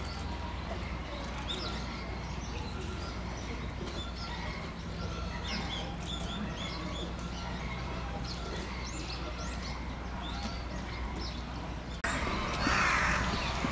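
Small birds chirping, short high calls scattered throughout over a steady low hum. About twelve seconds in, the sound changes suddenly to a louder hiss-like noise.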